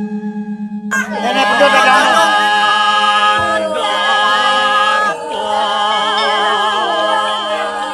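Music of singing voices holding long, wavering notes over a steady drone; the voices come in about a second in.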